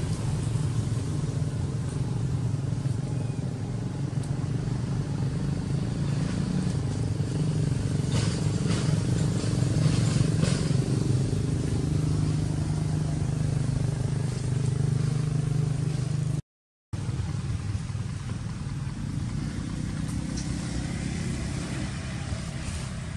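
A motor vehicle engine running steadily nearby, a low hum, with a few faint clicks around the middle; the sound cuts out for a moment about two-thirds of the way in.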